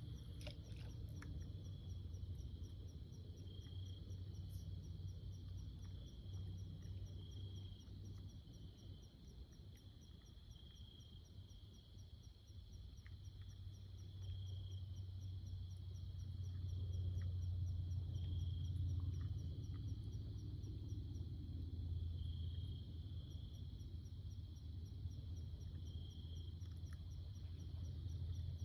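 A steady, high-pitched insect chorus with fast, regular ticking, swelling every two seconds or so, over a low rumble.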